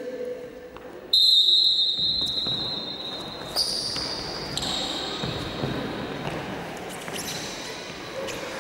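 Shrill whistle blasts, the first sudden and loud about a second in, over children's voices shouting during a tug-of-war game.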